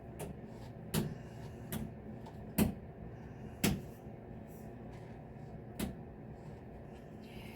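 About five sharp plastic clicks and knocks at irregular spacing as a filter shower head is screwed onto the shower arm by hand.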